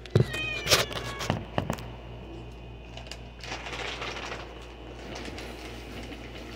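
A house cat meows once, briefly, about half a second in, amid a few sharp knocks, followed by a stretch of rustling around four seconds in.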